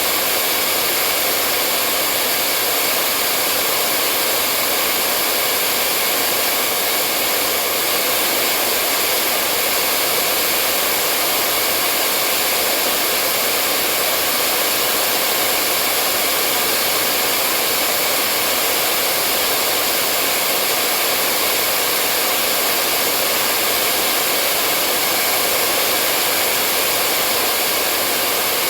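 Hair dryer blowing, a steady airy rush with a faint motor whine and no change in pitch or level.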